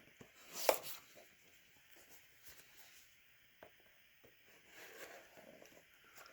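Faint handling of packaging: one sharp crinkle about 0.7 s in, then scattered soft clicks and rustles of items being unpacked.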